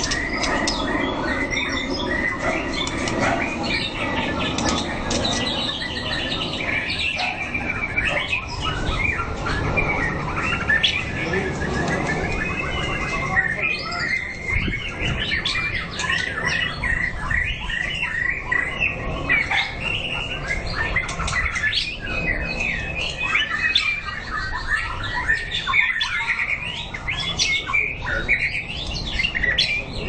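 White-rumped shama singing: a near-continuous stream of short whistled and chirping notes, some sliding up or down in pitch.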